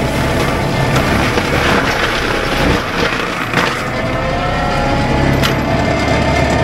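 Cat 299D3 compact track loader's diesel engine running under load with its Fecon BlackHawk forestry mulcher head spinning, heard from the cab: a steady low drone with a whine that slides slightly in pitch. A few sharp knocks of debris striking the machine.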